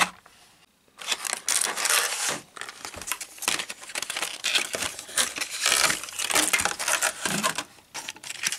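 Plastic packaging crinkling and tearing as a diecast toy car is unwrapped from its pack, starting about a second in and going on in quick irregular rustles.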